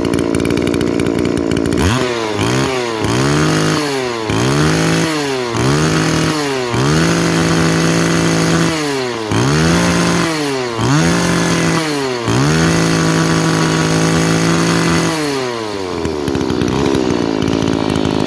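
Tanaka 30cc two-stroke brush-cutter engine head, fitted with no shaft, idling and then revved up and down by hand at the carburettor throttle about nine times. Each rev climbs sharply and drops back, and the later ones are held high for a second or more before it settles back to idle near the end.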